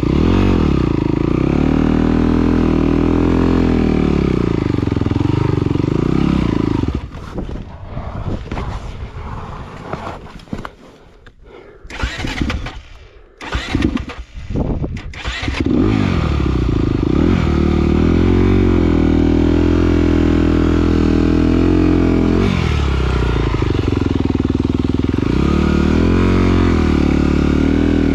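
Dirt bike engine running close by, its pitch rising and falling with the throttle as the bike works over rough trail. After about seven seconds it drops away to quieter, uneven noise with scattered knocks for roughly eight seconds. Then the engine picks up loud again.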